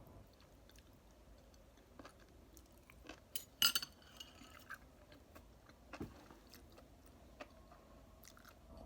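Eating sounds: scattered light clicks of utensils against a bowl, with a louder clink that rings briefly about three and a half seconds in, and faint chewing.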